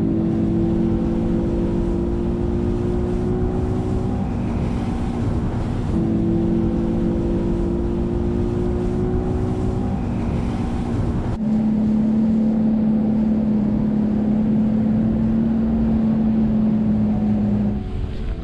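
Bass boat's outboard motor running at speed, its note edging up over a few seconds, breaking off, then edging up again. About eleven seconds in the engine note changes abruptly to one steady lower hum.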